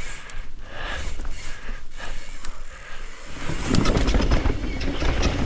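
Mountain bike rolling fast down a dirt trail: tyres crunching over dirt and roots, with the bike's frame and parts rattling. A little over halfway through it gets louder and rougher, with a dense run of knocks and clatter.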